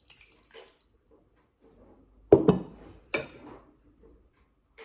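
Thick milk kefir pouring from a glass jar into a fine metal mesh sieve over a ceramic bowl, with soft plops and drips. A little over two and three seconds in come two sharp clinks of glass or metal knocking.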